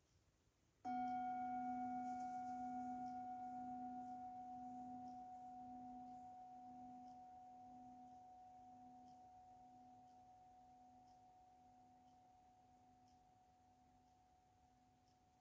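A metal singing bowl struck once about a second in, ringing on with a low, slowly wavering hum and a clearer higher tone; the highest overtones fade within a few seconds and the rest dies away slowly.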